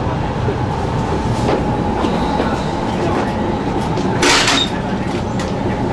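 Running noise inside a 500 series Shinkansen: a steady rumble of wheels on rail, with a brief loud hiss about four seconds in.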